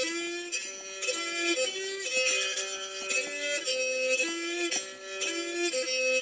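Instrumental background music: a melody of held notes stepping up and down.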